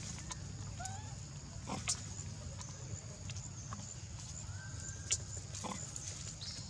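Dry leaf litter rustling and crackling as a baby monkey forages, with two sharp snaps about two and five seconds in. Under it run a steady high-pitched buzz and a few faint short chirps.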